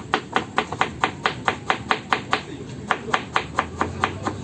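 Kitchen knife chopping a carrot on a wooden board, a quick, even run of knocks about five a second.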